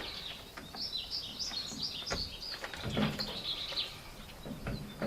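Small birds chirping in quick, high runs for a few seconds, with a few soft knocks in between.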